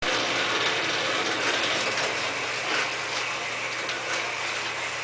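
Blacksmith shop equipment running steadily: an even rushing noise with a low hum and a few faint ticks, no hammer blows.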